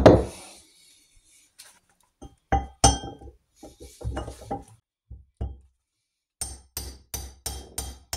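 Hammer blows on a box spanner used as a drift, driving a main-bearing inner race onto the end of a Norton Commando 850 crankshaft. A heavy knock at the start and a few scattered blows, then from about six seconds in a steady run of about three blows a second, each with a metallic ring.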